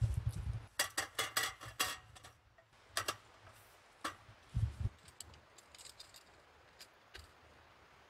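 Aluminium slats of a roll-up camp table clattering as the top is unrolled and laid onto its folding frame: a quick run of light metallic clicks about a second in, then single clicks and a dull thump near the middle, tapering to faint ticks.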